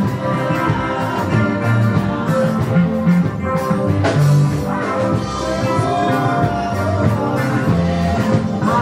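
Live worship music played by a band, with guitar prominent.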